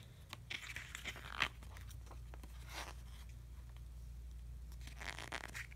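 Glossy paper pages of an album photobook being handled and turned, a few soft rustles and swishes.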